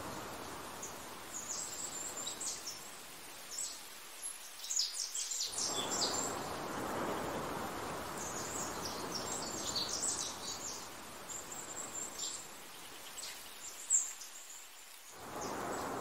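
Small birds chirping in quick, high calls over a rush of wind that dies down twice for a moment.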